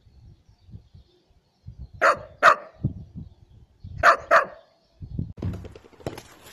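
Dachshund barking: two quick barks, a short pause, then two more.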